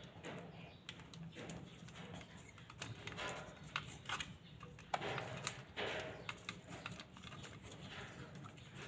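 Scattered small clicks and taps with short rustles, from hands working a small plastic electrical fitting and its wire; the sharpest clicks come about four and five seconds in.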